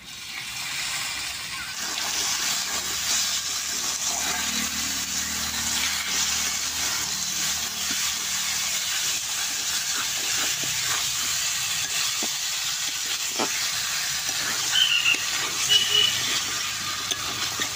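Raw chicken pieces sizzling in hot oil and onion-garlic paste in an aluminium kadai. The sizzle swells as the meat goes in and settles into a steady hiss, with a metal spatula now and then knocking and scraping on the pan as the chicken is stirred.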